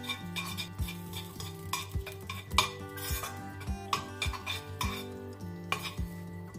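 Metal tongs clicking and scraping irregularly against a non-stick frying pan as spaghetti is tossed and stirred with pecorino cream, with the sharpest clink about two and a half seconds in. Soft background music plays underneath.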